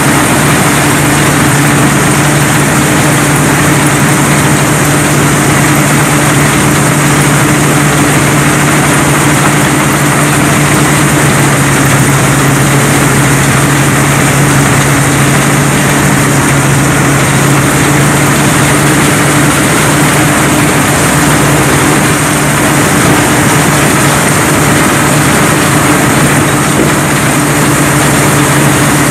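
Rice combine harvester running steadily under load while it harvests: a loud, even engine drone over a dense mechanical rush that holds without change.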